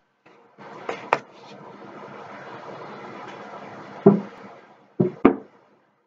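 A person drinking water from a plastic gallon jug: water sloshing and gulping for about three and a half seconds, ending in a loud short sound about four seconds in as the drink stops, then two short sharp sounds a second later.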